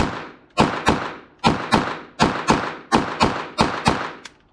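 Glock 44 .22 LR pistol firing a rapid string of about a dozen shots, roughly three a second and often in pairs, each crack trailing off in a short echo: a mag dump from an extended magazine.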